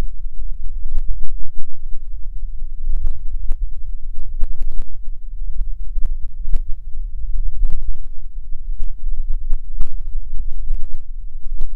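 Wind buffeting the microphone: a loud, fluctuating low rumble with scattered light clicks.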